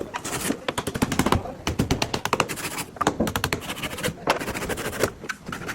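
Rapid, irregular series of sharp knocks of hand tools striking wood, as in hand-building a wooden boat.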